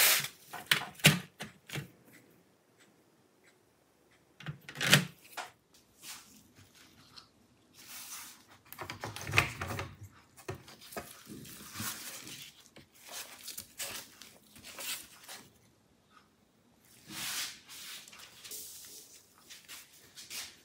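Plastic snap-fit clips of a laptop's bottom cover popping loose as a plastic pry tool works around the edge, a series of sharp clicks and snaps with plastic scraping and rubbing between them as the cover is lifted off.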